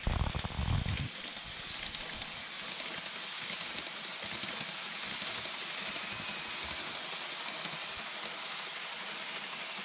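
N-gauge model train (KATO E257 series 2000 set) running on track: a steady hiss of its small metal wheels rolling along the rails, with a brief low rumble in the first second.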